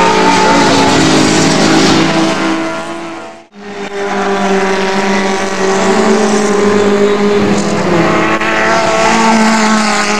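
Racing car engines running hard at high revs past the trackside, their pitch steady with small rises and falls. About three and a half seconds in the sound drops out briefly at an edit, then a single-seater racing car's engine takes over.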